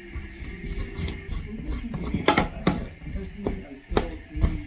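Wooden spatula stirring and scraping sliced onion and zucchini around a nonstick frying pan: a run of sharp scrapes and knocks against the pan, several in quick succession in the second half.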